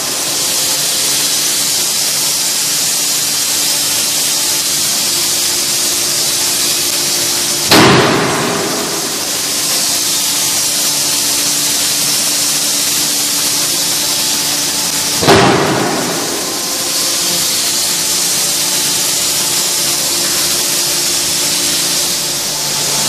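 5-tonne electro-hydraulic close-die forging hammer striking a hot blade blank in the die: two heavy blows about seven and a half seconds apart, each ringing out briefly, over a steady hiss and low hum.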